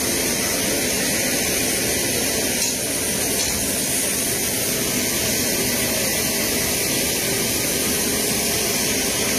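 Steady, loud rush of aircraft jet engine noise, even and unbroken.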